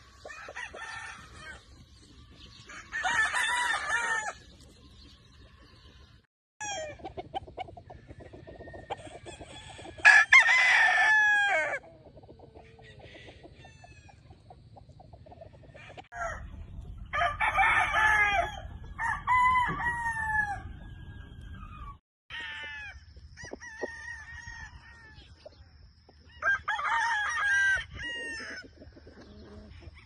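Game roosters (gamecocks) crowing, about five separate crows each lasting a second or two, one after another.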